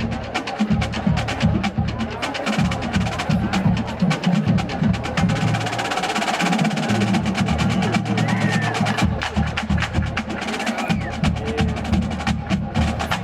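Marching band drumline playing a fast cadence: rapid, crisp snare strokes and rim clicks over pitched bass drums that move between notes.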